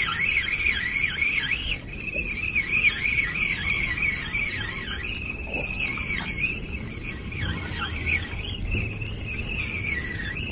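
Insect chorus: a continuous high-pitched trill that wavers up and down several times a second.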